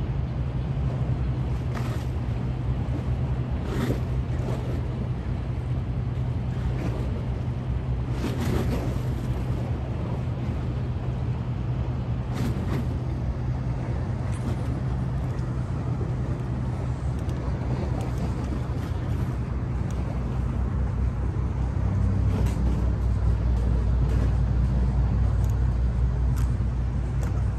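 Steady low engine hum from the docked MS Sonoma passenger ferry, with scattered short knocks over it. About four-fifths of the way through, the low rumble deepens and grows louder.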